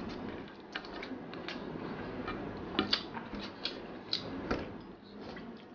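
Fingers mixing and gathering rice on a steel plate to eat by hand, with light, irregular clicks and ticks of the fingers and food against the metal.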